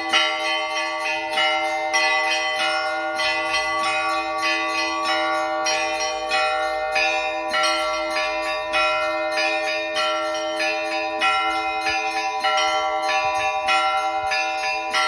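Russian Orthodox church bells ringing a zvon: the small bells struck in a quick continuous pattern, about three strikes a second, over the steady ringing of the larger bells.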